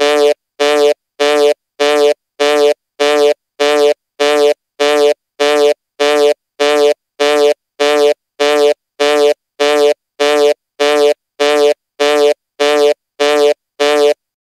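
Electronic timer alarm buzzer going off at zero, signalling that the countdown has ended. It gives a long run of identical short buzzing beeps, a little under two a second, and stops just before the end.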